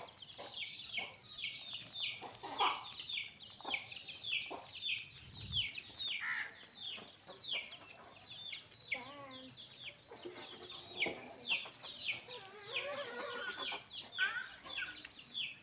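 Baby chicks peeping without a break: short high peeps, each falling in pitch, about three a second, with a few lower hen clucks mixed in during the second half.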